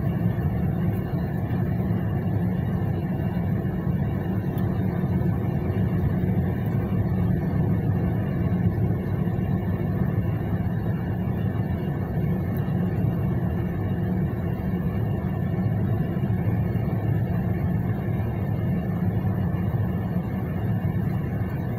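Steady low rumble of a moving car heard from inside the cabin: road and engine noise while driving on a paved road, even in level throughout.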